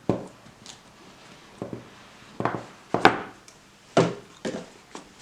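A knife's presentation box being opened and handled: a series of short knocks and scrapes as the lid and the paper inserts are moved about.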